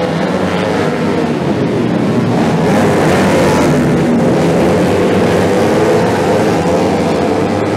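A pack of small racing motorcycles passing at full throttle, many engines sounding together. The sound grows to its loudest about three seconds in and eases off near the end.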